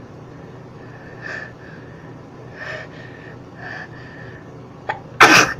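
A man building up to a sneeze with three catching breaths, then sneezing loudly once about five seconds in.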